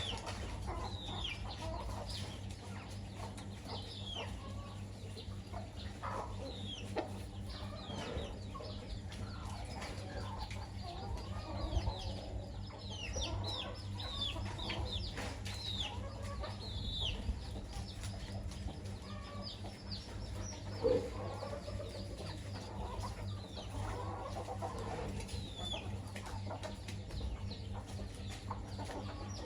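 A hen and her chicks feeding: the chicks keep up short, high peeps falling in pitch, over low clucking from the hen, with one sharp knock about two-thirds of the way in and a steady low hum underneath.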